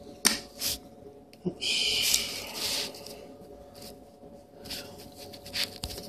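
Chrome Zippo lighters being handled: a few sharp metal clicks and taps, and a rough hiss lasting about a second a little after one and a half seconds in.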